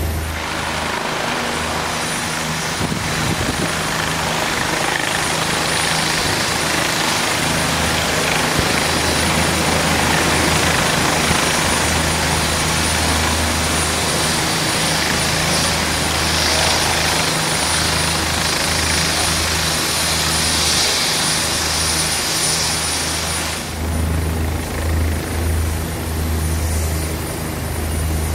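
OH-58D Kiowa Warrior helicopter running close by, with a steady low rotor beat under a wide rushing noise and a thin high turbine whine, as one hovers just above the ground to land. About four-fifths of the way in the rushing noise drops away, leaving the low rotor beat rising and falling.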